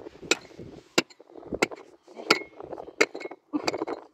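A short-handled pick striking hard, stony ground in a steady rhythm, about six blows roughly two-thirds of a second apart, each a sharp clink of metal on stone, with loose earth and gravel rattling between blows.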